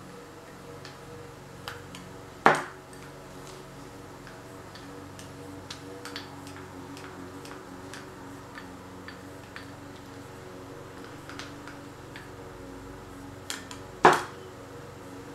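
Small paint cups and wooden stir sticks clicking and tapping as paint is handled on a table, with two sharp knocks, one about two and a half seconds in and one near the end, each ringing briefly as a cup is set down.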